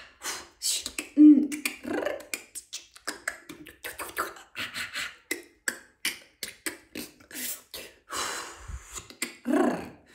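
A woman's voice making a rapid stream of mouth clicks, tongue clucks and short breathy syllables, the non-word vocalising of channelled light language.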